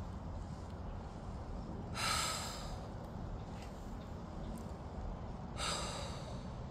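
Two deep, audible breaths out, one about two seconds in and one about five and a half seconds in, part of a slow deep-breathing exercise. Under them runs a steady low rumble of wind on the microphone.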